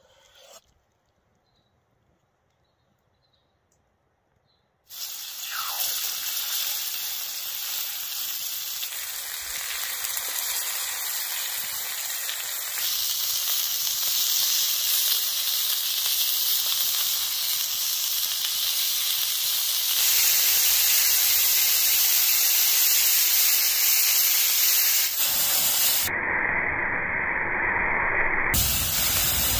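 Beef lollipops sizzling on a hot flat pan over a wood fire: a loud steady hiss that starts about five seconds in. Near the end a duller gushing sound as liquid is poured onto the hot pan and steams, then the sizzling returns.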